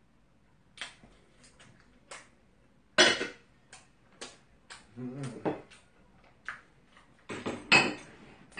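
Metal spoon and chopsticks clinking and knocking against porcelain bowls and plates while eating, a string of separate sharp clicks, the loudest about three seconds in and again near the end.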